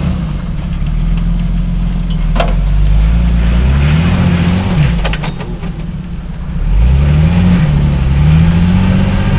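Rock-crawling Jeep's engine pulling under load as it climbs over rocks, the revs rising around four seconds in, dropping, then rising again and holding near the end. A couple of short knocks are heard along the way.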